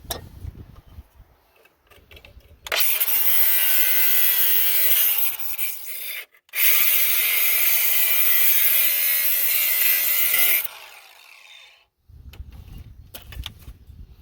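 Battery-powered angle grinder with a cutoff wheel cutting through barbed wire: two long cuts of about three and a half and four seconds with a short break between, then the wheel winds down.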